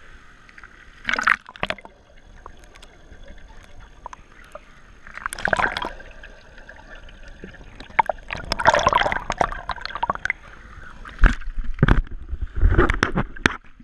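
Water splashing and gurgling around a kayak as it capsizes in a pool, with the paddler upside down underneath. Bursts of splashing come about a second in, around five and a half seconds, from about eight to ten seconds, and several times near the end.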